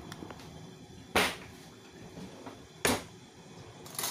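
A metal fork knocking against a ceramic dish of guacamole: two sharp clinks about a second and a half apart, then a few lighter taps near the end.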